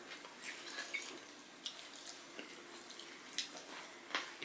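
Faint wet eating sounds of rice and curry being eaten by hand: scattered small clicks and smacks of chewing and of fingers working the rice, with a slightly sharper knock near the end.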